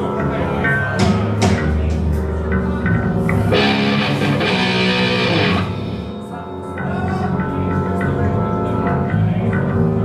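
Live rock band playing loud amplified music: electric guitar with bass and drums, with a burst of bright, noisy sound in the middle.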